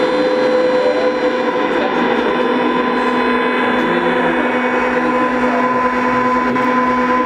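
Live noise music from a chain of guitar effects pedals: a loud, dense wash of noise with steady held tones, a lower tone coming in about two seconds in, and small blips as the knobs are turned.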